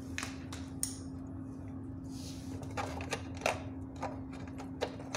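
Scattered light clicks and taps of hands handling a small circuit board and the plastic housing of an LED floodlight, over a steady low hum.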